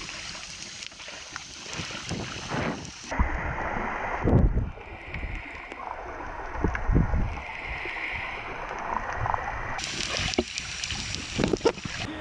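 Water splashing and sloshing around a snorkeler's camera, turning muffled and bubbly when it goes under the surface about three seconds in, with a few low thumps of kicks and bubbles; the open splashing returns about ten seconds in.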